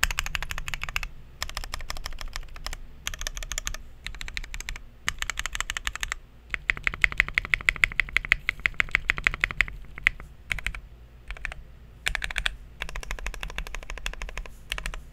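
Typing on a plateless Tofu 65 mechanical keyboard with linear Tangerine switches and PBT keycaps. The keystrokes come in quick bursts with short pauses, and the longest steady run comes in the middle.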